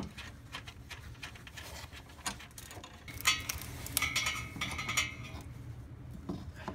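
Metal hand tools and car parts clinking and knocking in a run of irregular sharp clicks, with a brief metallic ring a few seconds in.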